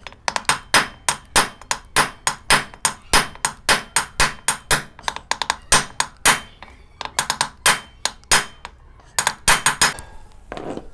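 Hammer blows on a wooden drift, driving a ball bearing into the aluminium crankcase of a TVS XL Super moped engine. The sharp knocks come about two to three a second, with a short pause midway, then quicker bunches of blows that stop about a second before the end as the bearing seats.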